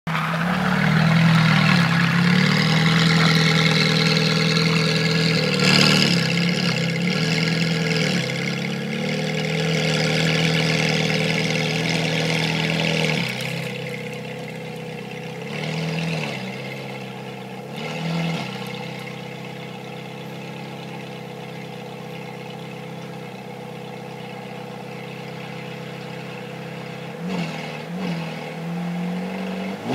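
Ferrari 430 Scuderia's warmed-up 4.3-litre V8 running at low revs as the car creeps into the garage, then settling to a steadier, quieter idle about thirteen seconds in. Short throttle blips come a few times, two of them close together near the end.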